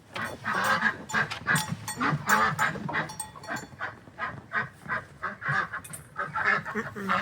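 Domestic ducks calling loudly in a quick run of short, honking quacks, several a second and overlapping.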